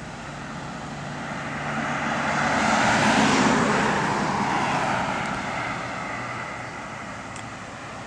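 Engine noise of a passing vehicle, swelling to a peak about three seconds in and then slowly fading.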